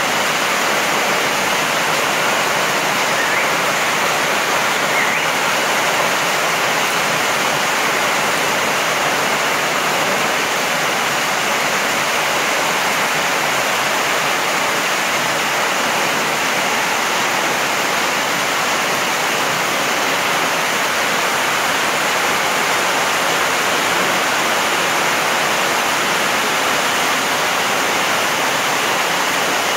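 Heavy rain pouring down steadily, splashing onto gravel and standing water: a loud, dense, even hiss with no let-up.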